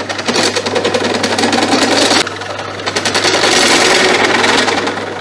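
Benchtop drill press cutting a large hole through 2 mm aluminium rectangular tube with a step drill: a loud, harsh grinding chatter over the motor's steady hum. The cut eases about two seconds in, picks up again a second later and tails off near the end.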